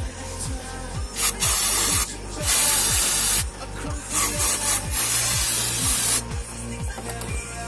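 Aerosol brake cleaner hissing out of the can in several bursts of about a second each, sprayed onto a bare aluminium engine crankcase half to clean it.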